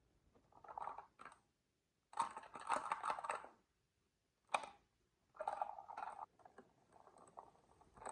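Marbles rolling and clattering along marble run track pieces in several short bursts of rapid clicking. A single sharp click comes about four and a half seconds in, and light scattered clicks follow near the end.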